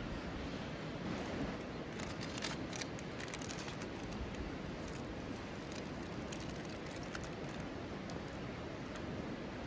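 Crinkling clicks of a thin plastic salad cup and lid being opened and handled, mostly in a burst two to three and a half seconds in, over steady outdoor wind-like hiss.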